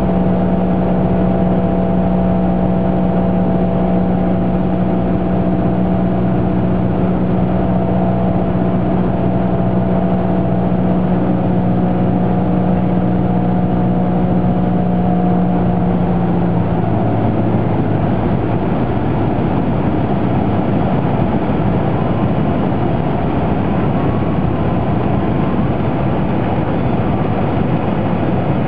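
Cessna 172S's four-cylinder piston engine and propeller droning steadily, heard inside the cabin. A little over halfway through, the throttle is pulled back to idle for the landing. The steady hum gives way to a lower, rougher engine sound mixed with rushing air.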